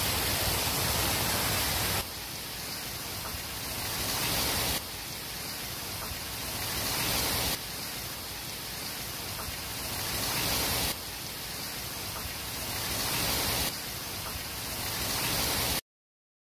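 Heavy rain mixed with falling hail, a dense steady hiss of pellets and water on the ground and yard objects. The sound cuts out completely for about a second near the end.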